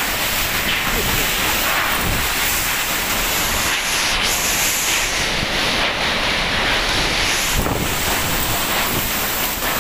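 Typhoon wind blowing hard: a steady, loud rushing noise, with wind buffeting the microphone.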